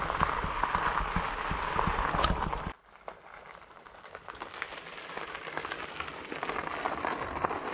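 Fat bike tyres rolling over a gravel trail, a steady crackling crunch. About three seconds in it drops abruptly to a quieter crackle that slowly builds again.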